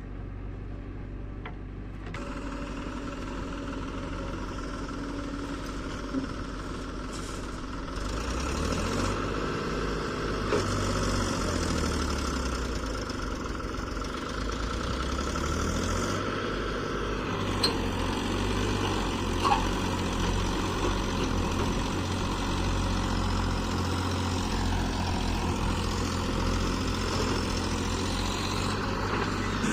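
Diesel engine of a JCB 3DX backhoe loader running, its pitch rising and falling several times as the load on it changes, with a few short sharp knocks.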